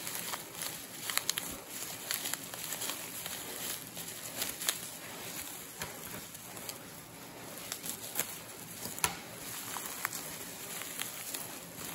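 Black plastic bubble wrap being crinkled and pulled apart by hand: a steady rustle with sharp crackles scattered through it, a few louder snaps standing out.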